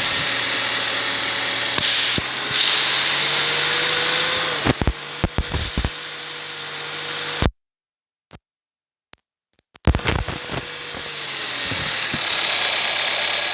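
Audi A4 engine running with a steady hiss and whine, the squeaking, swooshing noise of its faulty air pressure diaphragm. The whine rises slightly in pitch and then drops back. A few clicks come about five seconds in, and the sound cuts out abruptly for about two seconds before returning.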